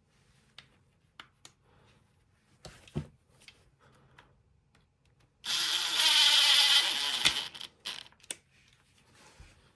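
Light clicks and knocks of small parts being handled, then a power drill/driver runs for nearly two seconds, the loudest sound, followed by a few more clicks.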